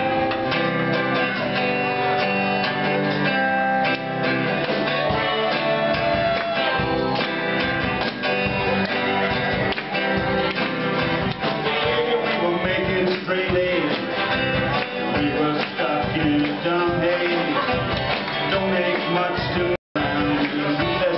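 Live band playing: strummed acoustic guitar with electric guitar and drums. The sound cuts out completely for a moment near the end.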